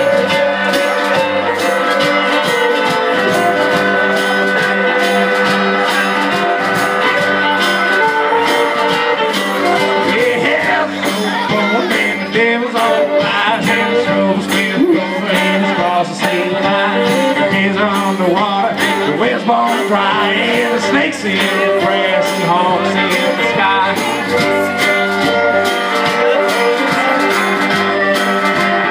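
A band playing live music with a steady beat.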